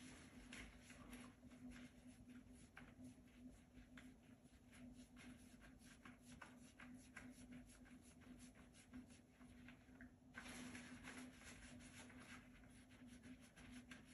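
Faint scratchy rubbing and scattered light ticks of bicycle crankset parts being wiped clean by hand, over a steady low hum.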